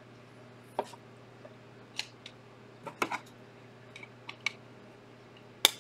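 Light plastic clicks and taps from a trading card being fitted into a plastic card holder, about seven spread out, the loudest near the end. A faint steady low hum runs underneath.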